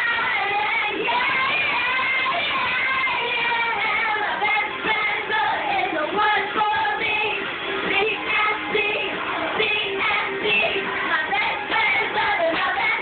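Pop song with a female singing voice, with young girls singing along to it.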